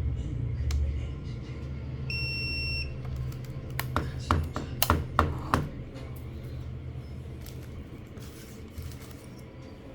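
A single electronic beep lasting just under a second, then a quick run of sharp clicks, over a steady low hum.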